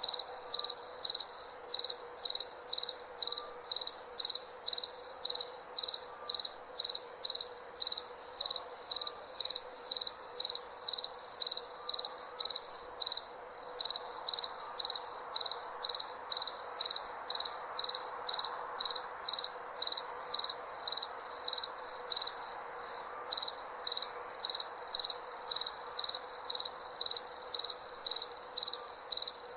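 A cricket chirping in a steady, even rhythm of short high chirps, about two a second, over a faint steady hum.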